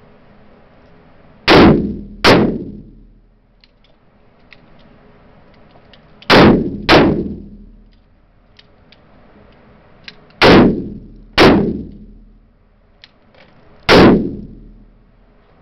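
Handgun shots in an indoor range, fired as double taps: three pairs, each pair a little under a second apart, then a single shot near the end. Each shot is very loud, with a ringing echo off the range walls.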